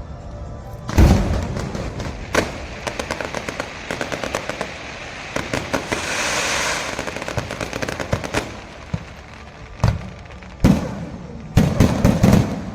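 Aerial fireworks going off: loud single bangs, then several seconds of dense rapid crackling that swells into a hissing crackle in the middle, and a closing volley of heavy bangs near the end.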